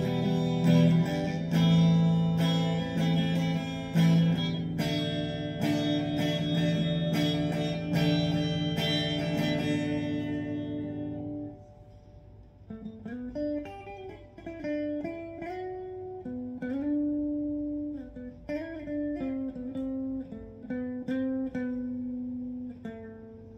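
Gibson Les Paul Faded electric guitar with both humbucking pickups on, played through a Vox valve combo amp. The first half is loud ringing strummed chords. From about halfway in come quieter single-note melodic phrases with string bends and slides.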